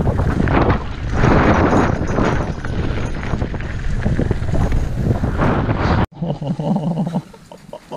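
Wind buffeting the microphone over the rumble and rattle of mountain-bike tyres on a dirt singletrack during a fast descent. About six seconds in it cuts off abruptly to a much quieter stretch with a low hum and light ticking.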